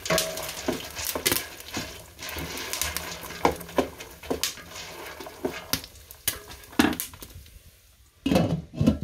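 Wooden spoon stirring popcorn in a stainless steel pot, with repeated knocks and scrapes against the pot and a faint sizzle. Near the end the glass lid clatters twice as it is set back onto the pot.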